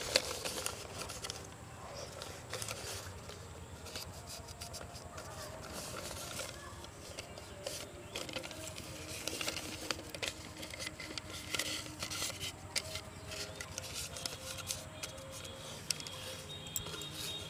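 Soft rustling and crinkling of newspaper, with small scattered taps, as cut strips are pressed against the inside wall of an aluminium pressure cooker.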